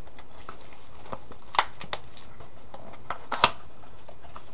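A few sharp clicks over a steady hiss, the two loudest about one and a half and three and a half seconds in.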